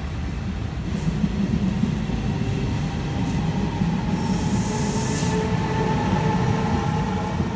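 Electric locomotive-hauled passenger train of coaches running past on the rails: a steady low rumble of wheels with a faint thin whine above it. About four seconds in, a high hiss comes up for about a second.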